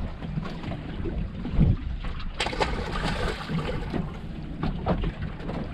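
Wind buffeting the microphone in a steady low rumble, with water slapping irregularly against the boat's hull.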